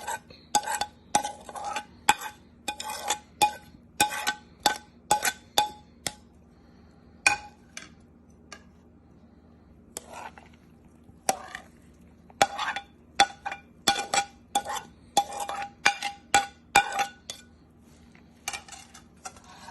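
A utensil clinking against a mixing bowl as a wet salmon patty mixture is stirred: repeated sharp clinks, about two a second, each with a short ringing tone from the bowl, pausing for about two seconds near the middle.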